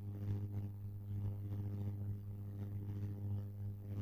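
A steady low electrical hum with a stack of overtones, the constant background noise of the recording setup, with no speech over it.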